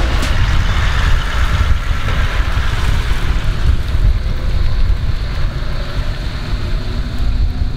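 Toyota LandCruiser Troop Carrier driving slowly past on a rough dirt track: a deep engine rumble with the rough noise of tyres rolling over dirt and stones.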